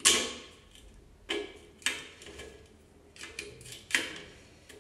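Sharp knocks as pieces are tapped into place: four loud ones at uneven intervals with a few fainter clicks between, each dying away quickly.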